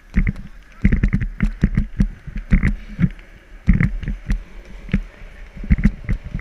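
Wind buffeting a moving microphone, with irregular knocks and thumps from a downhill skateboard run on asphalt.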